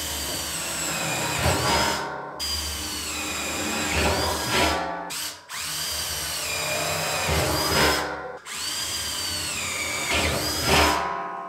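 Cordless drill boring quarter-inch holes through the sheet-steel wall of a 55-gallon drum. There are four runs of a steady motor whine, each a couple of seconds long, with short breaks between them.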